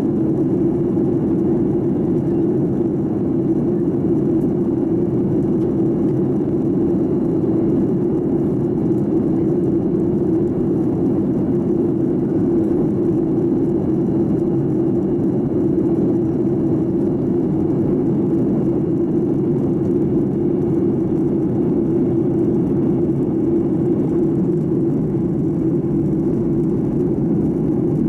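Steady, low-pitched cabin noise inside a Boeing 737-800 airliner in flight: its engines and the airflow over the fuselage, unchanging throughout.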